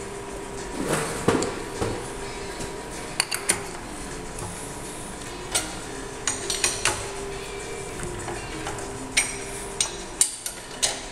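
Scattered sharp metallic clinks and taps from steel workpieces and tools being handled at a milling machine vise, over a faint steady hum.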